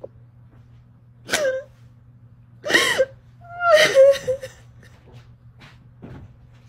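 A woman crying: three loud sobbing outbursts in the first half, the middle one rising and then falling in pitch, followed by quieter short breaths.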